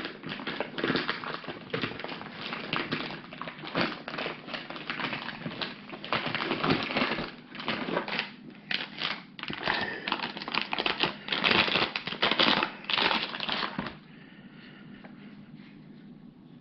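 Packaging wrap crinkling and rustling in irregular handfuls as the laser module is unwrapped and lifted out of its foam, stopping about 14 seconds in.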